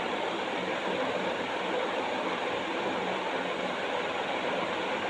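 Steady, even rushing background noise with no breaks or distinct events.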